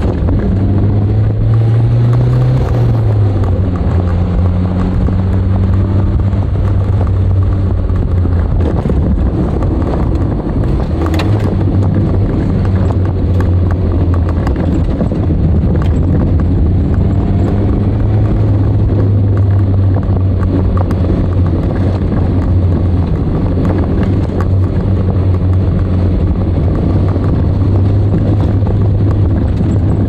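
Nissan DR30 Skyline RS Turbo's FJ20ET turbocharged four-cylinder engine running under way at a fairly steady speed. The engine note rises and falls briefly about two seconds in. There is a single sharp click about eleven seconds in.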